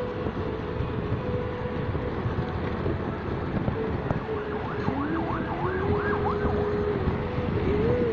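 Motorcycle engine and wind noise while riding. About four seconds in, a siren wails rapidly up and down, about three times a second, for two to three seconds, then stops.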